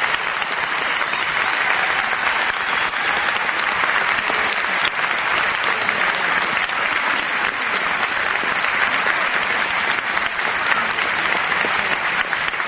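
Crowd applauding, a dense, steady clapping that holds at the same level throughout.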